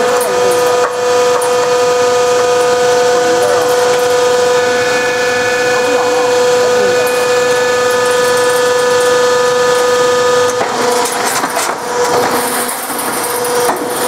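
Automatic crimped wire mesh weaving machine running: a loud, steady whine over mechanical clatter and hiss. About ten and a half seconds in, part of the whine drops out and the clatter becomes more uneven.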